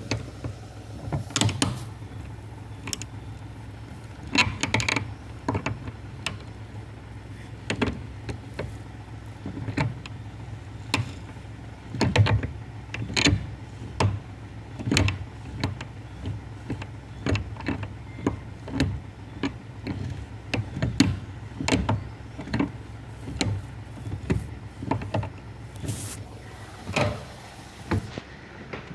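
Ford Ka steering clunking and knocking again and again as it is worked, about once a second with irregular spacing, over a steady low hum. The knocking is the sign of a fault in the steering.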